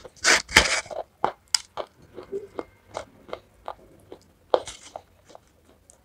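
Close-miked biting and chewing of a dry block of white khadi, an edible chalky clay: loud crunches right after the bite, then a string of small crisp crunches as it is chewed, with another loud crunch about four and a half seconds in.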